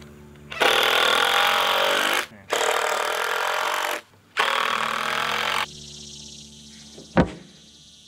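Power drill driving screws into a 2x4 frame joint in three runs of about a second and a half each, with short pauses between. A single sharp thump follows about seven seconds in.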